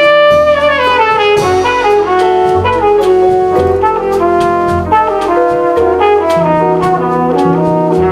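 Small jazz combo playing live: a brass horn plays a moving melody over double bass, piano and drums, with cymbal strokes ticking steadily through.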